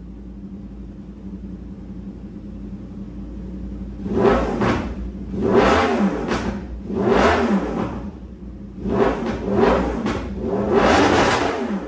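Yamaha R1 inline-four with an SC-Project exhaust idling, then revved in several quick throttle blips, each rising and falling in pitch, from about four seconds in.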